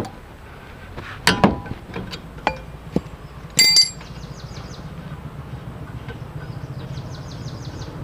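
Metal clinks and knocks from a Maruti front disc-brake caliper and its bolts and tools being handled as the caliper is freed and removed. The loudest is a ringing metallic clink about three and a half seconds in.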